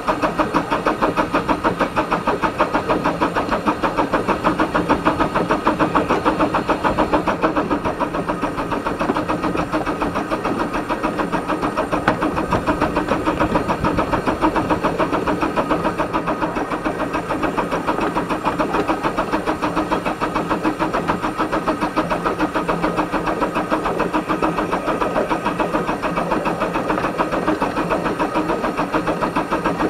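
12¼-inch gauge steam locomotive running under steam, heard from its footplate: a steady, fast, even rhythm of exhaust beats.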